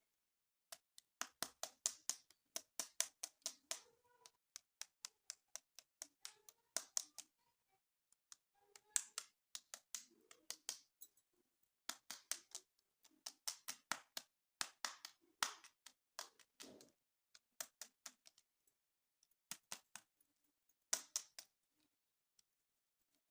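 Hands handling plastic toys and packaging: irregular runs of sharp clicks and taps, with short pauses between them.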